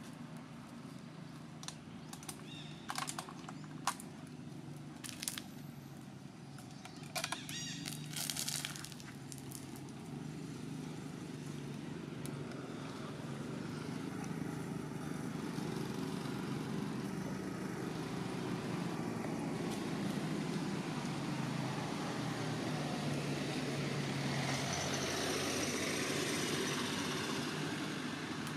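Outdoor background noise with a steady low rumble that grows louder through the second half, and a few sharp clicks and crackles in the first nine seconds.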